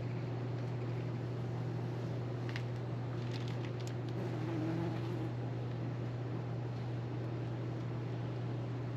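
A steady low mechanical hum, with a few faint light clicks from about two and a half to four seconds in.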